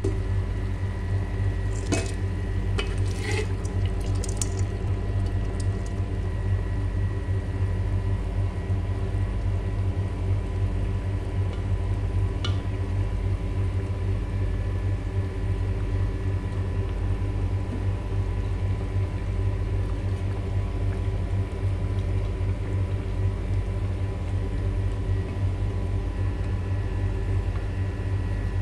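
Pot of chicken kabsa broth cooking on the stove, a steady low rumble and hiss with a faint hum. A few light clinks of the wooden spoon against the pot come in the first five seconds, and one about halfway through.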